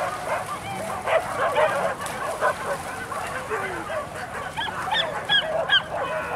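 A pack of boar-hunting dogs barking and yelping together, many voices overlapping, with a few sharp high yelps a little before the end.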